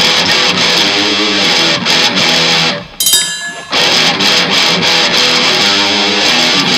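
Live rock band playing an instrumental stretch with loud electric guitar, briefly dropping out about three seconds in before coming back in.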